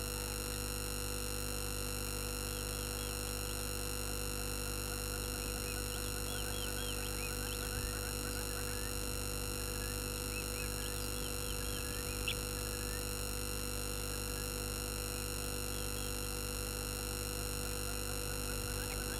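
Steady electrical hum and whine made of many fixed tones at once, with faint short chirps now and then and a single brief click about twelve seconds in.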